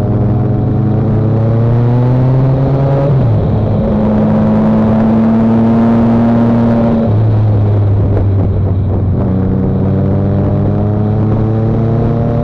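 Motorcycle engine heard from the bike while riding: its pitch climbs, drops sharply at an upshift about three seconds in, holds steady, then climbs again in the last few seconds. Wind and road noise rush underneath throughout.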